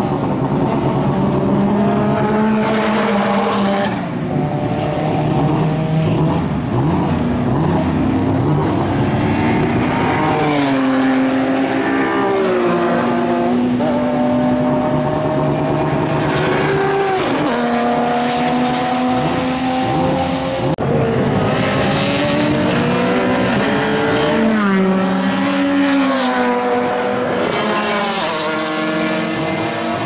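Time-attack race car engines running hard on a circuit. The pitch climbs as they rev up through each gear and drops sharply at every shift or lift, and several engines overlap at times.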